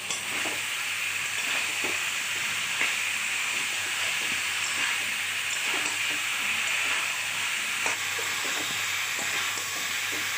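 Cauliflower florets sizzling steadily in hot oil and spice paste in a metal kadai, stirred with a metal spatula that clicks against the pan a few times.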